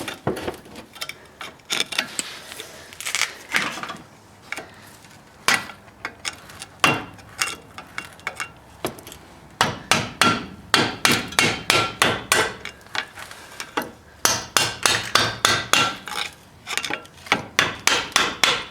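Hammer striking a chisel to knock worn-out brake pads off the brake caliper bracket: sharp metal-on-metal blows with a short ring. They are scattered at first, then come in quick runs of two or three a second from about halfway through.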